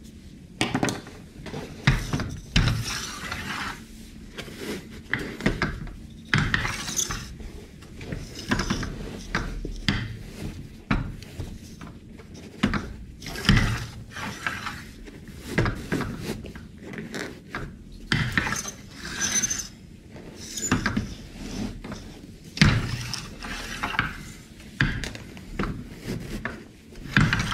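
Hands working a car seat cover onto the seat: irregular rustling of the cover and foam, with frequent knocks and clicks from the metal seat frame and clips.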